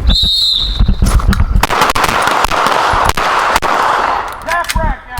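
A high beep lasting about a second, then a string of pistol shots fired at an uneven pace, several handguns firing on the line with shots overlapping. A voice cuts in briefly near the end.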